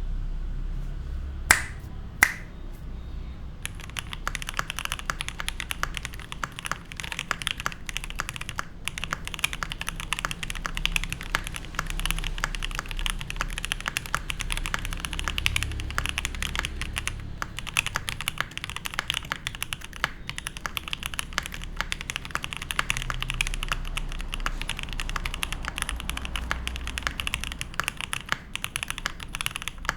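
Typing on a gasket-mounted Mammoth75 mechanical keyboard with lubed Gateron Black Ink v2 linear switches, an FR4 plate and GMK keycaps: a dense, continuous run of keystrokes from about four seconds in. Before the typing starts, two sharp clicks, louder than the keystrokes.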